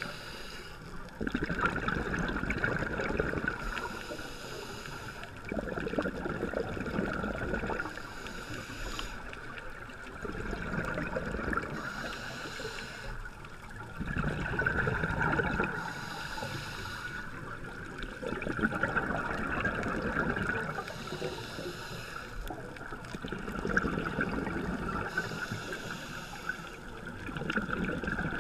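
Scuba diver breathing through a regulator underwater. A high hiss on each inhale alternates with a louder, lower rush of exhaust bubbles on each exhale, about one breath every four to five seconds, roughly six breaths in all.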